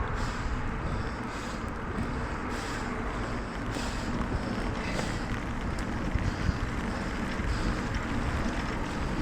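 Wind buffeting the microphone, a steady low rumble, with a faint hiss coming back about once a second.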